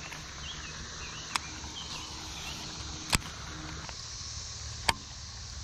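Quiet outdoor background at a pond with three sharp clicks, about a second and a half apart, the middle one loudest.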